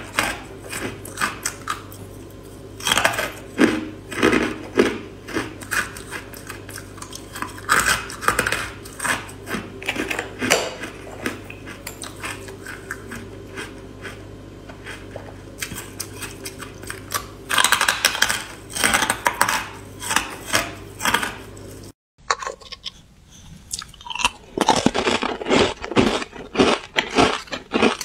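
Close-up crunching and chewing of porous carbonated ice, the bites coming in quick clusters of crisp crackles. A brief drop-out about three quarters of the way through, then more crunching of ice.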